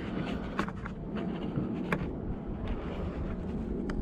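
A few light clicks, about three, of a plastic number-plate lamp lens and bulb holder being handled, over a steady low rumble with wind on the microphone.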